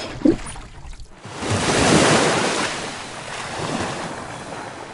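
Intro sound effect of a rushing wave of noise, like surf, that swells about a second in and slowly fades away, after a short knock at the start.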